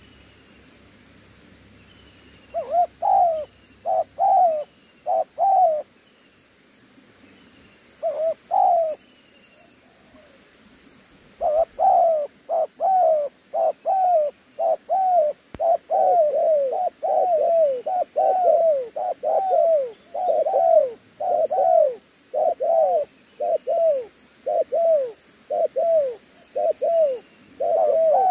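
Spotted dove cooing: a few short groups of coos in the first seconds, then from about eleven seconds in a long, fast run of evenly repeated coos, roughly two a second. This is the springy run of tail notes that keepers call 'đèo lò xo'.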